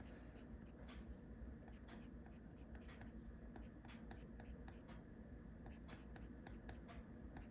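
Coloured pencil scratching on paper in quick, repeated shading strokes, several a second, faint.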